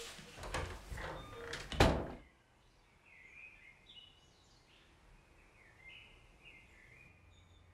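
A hospital room door swung shut, with rustling and movement before it and one sharp, loud knock as it closes about two seconds in. Afterwards faint bird chirping, a few short sliding calls.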